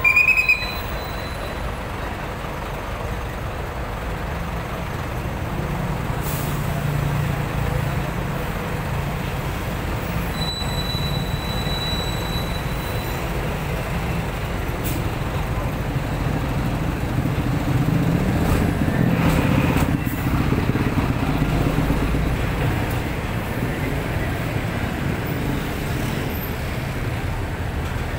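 Slow heavy road traffic passing close by: trucks and motorcycles with a steady low engine and tyre rumble that swells louder about two-thirds of the way through. A traffic enforcer's whistle gives a short blast at the very start.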